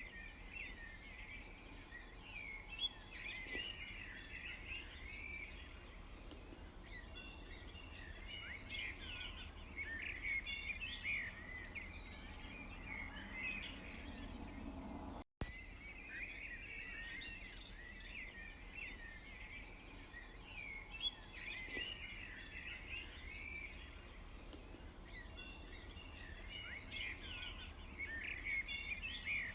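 A chorus of many small birds chirping and twittering together, the calls overlapping continuously, over a faint steady low hum. About halfway through the sound cuts out completely for a split second, then the chorus carries on.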